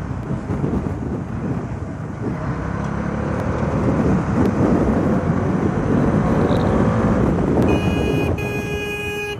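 Motorcycle engine running with road and wind noise while riding, the engine note rising as it picks up speed. Near the end a horn sounds twice, in two blasts of about a second each.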